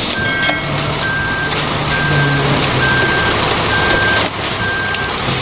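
Front-discharge concrete mixer truck's reversing alarm beeping about once a second, each beep about half a second long, over the steady noise of the truck at work.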